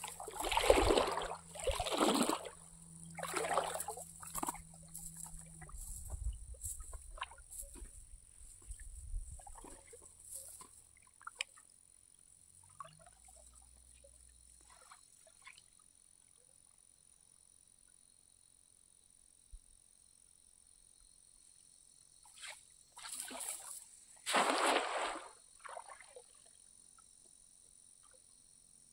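Water splashing and sloshing in bursts during cast-net fishing in a shallow lake: a cluster in the first few seconds, a few small splashes after, then another cluster about 23 to 26 seconds in. A steady high insect buzz goes on behind.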